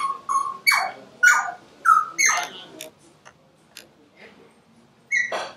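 A dog yelping and whining in short calls that fall in pitch: several in quick succession over the first three seconds, then a few faint clicks, and one more call near the end.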